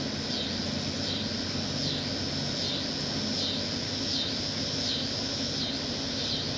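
Outdoor evening ambience: a steady low hum with a high, falling call repeating about every three-quarters of a second.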